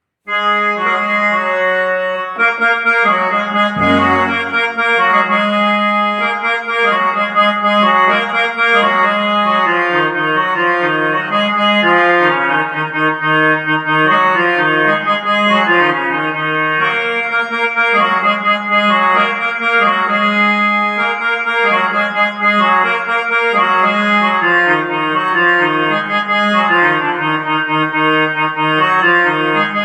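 Yamaha PSR-E473 portable keyboard playing its harmonium voice: a melody of sustained, organ-like notes over a lower held part, continuous throughout.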